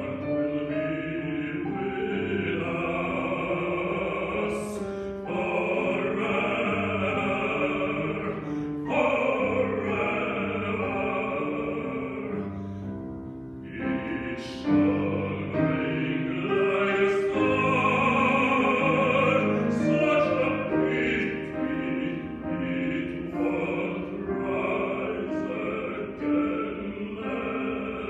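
A male classical singer sings an art song in phrases with vibrato, accompanied by a grand piano.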